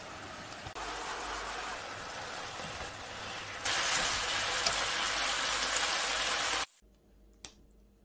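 Bulgogi and tofu noodles sizzling in a hot frying pan as they are stirred, a steady hiss that grows louder in two steps and then cuts off abruptly near the end, followed by a single light click.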